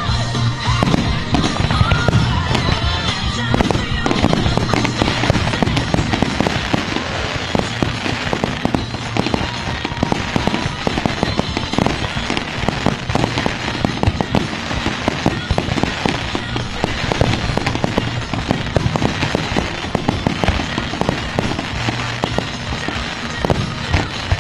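Aerial fireworks bursting in a dense, continuous crackle of many small reports, with music playing underneath.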